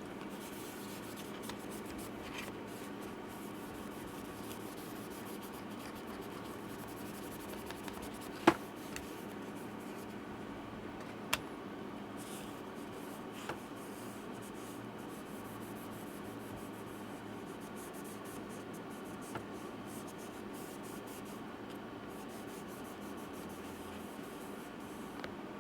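Faint scraping and rubbing of tools working the glued old battery out of a 2012 MacBook Pro, over a steady low hum. A few sharp clicks break in; the loudest comes about eight and a half seconds in.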